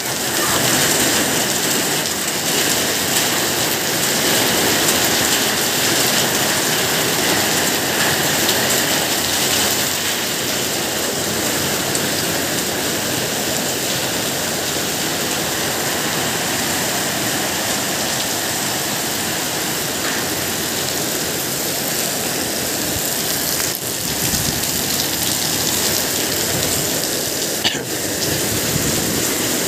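Heavy typhoon rain pouring steadily onto wet pavement, with strong wind, a constant even hiss with no letup.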